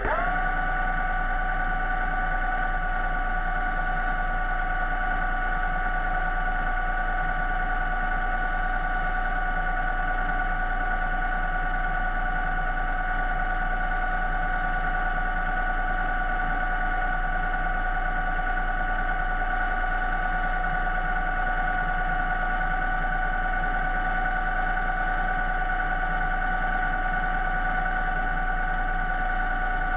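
A motor's steady whine that rises in pitch as it spins up at the very start, then holds one pitch, over a low hum.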